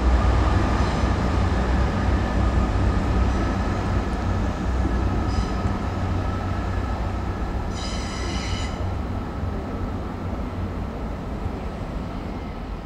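Class 165 Turbo diesel multiple unit running slowly over curved track, a low engine and wheel rumble with a thin steady whine that slowly fades as it moves away. A brief high wheel squeal comes about eight seconds in.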